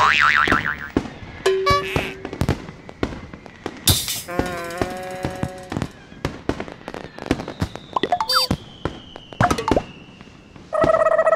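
Fireworks sounds on an animation soundtrack: a scatter of sharp pops and bangs with whistling glides, including a long, slowly falling whistle in the second half and a short buzzy toot near the end.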